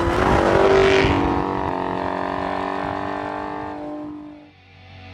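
Car engine revving, its pitch rising for about a second and then sliding lower as it fades away. Near the end a low hum swells in.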